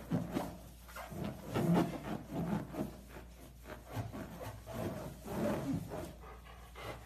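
A golden retriever pressing and rubbing its head and mouth on a large rubber balloon, the balloon skin making rubbing, rasping sounds in irregular strokes, a few a second.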